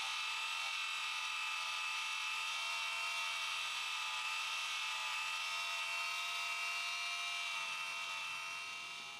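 Cordless rotary tool running steadily with a felt buffing wheel, polishing the edges of a Kydex sheath with buffing compound: an even, high-pitched motor whine that fades out near the end.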